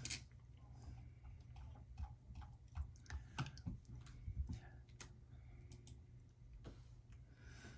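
Faint, irregular light clicks and taps, a few a second at most, over a low steady hum.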